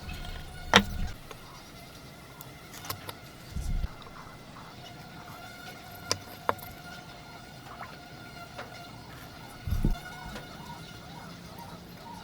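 Hand woodworking: a few sharp clicks and two or three dull wooden knocks, spread irregularly, over a faint steady high whine.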